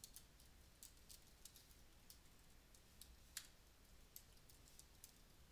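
Faint typing on a computer keyboard: irregular keystroke clicks, with one louder keystroke about halfway through.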